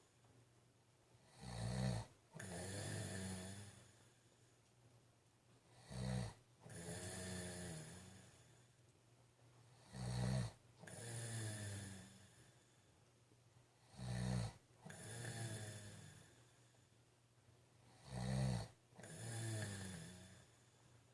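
A man snoring in deep sleep in a steady rhythm about every four seconds, five times: each cycle is a short loud snort followed by a longer, drawn-out snoring breath.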